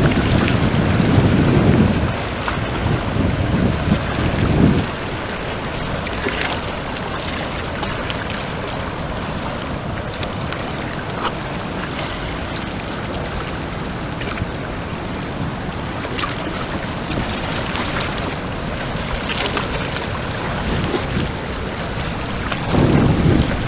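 Fast river current rushing steadily through rapids, with wind buffeting the microphone in low gusts during the first few seconds and again near the end.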